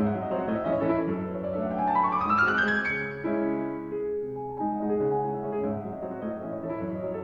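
Piano music: a quick rising run of notes about a second in, climbing to a high note near three seconds, then slower held chords.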